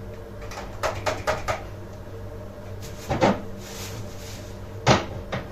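Kitchen cupboard and drawer handling: a run of quick light clicks about a second in, a knock a little after three seconds and a sharp knock near the end, over a steady low hum.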